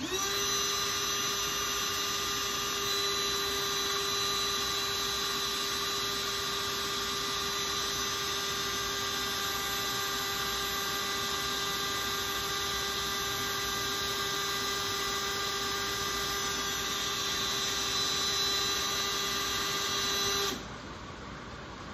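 Milwaukee cordless drill running at a steady pitch for about twenty seconds, its Mastercraft half-inch bit grinding against a steel brake rotor. It stops suddenly near the end. The bit is barely cutting: not really getting anywhere.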